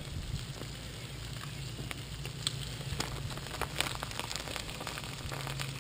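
Butter and fish juices sizzling in a foil tray on a hot gas grill, with scattered small pops and crackles over a low steady hum.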